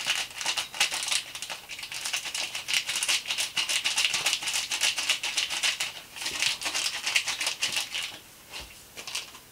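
Dry baker's yeast granules rattling in a foil sachet as it is shaken and tapped out over a bucket of liquid, a dense fast patter of tiny ticks. It dips briefly about six seconds in and stops about eight seconds in.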